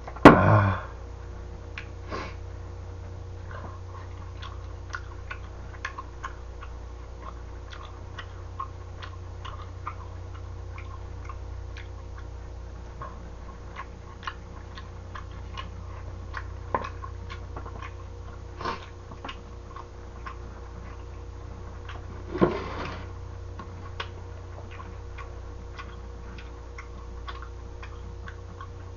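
Eating sounds: light, irregular clicks of wooden chopsticks against a plastic takeout tray, with chewing, over a steady low hum. A glass is set down on the table with a loud knock right at the start, and another loud knock comes about 22 seconds in.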